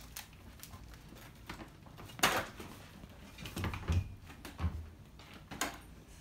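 Scattered knocks, thuds and rustles of bags and objects being handled as people move about a small room. The loudest knock comes about two seconds in, with a cluster of dull thuds around four seconds.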